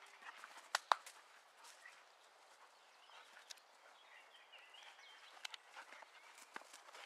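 Scuffling of a dog's paws and a man's boots on sandy ground during rough play, with scattered sharp knocks and clicks, the loudest about a second in. Faint chirping in the middle.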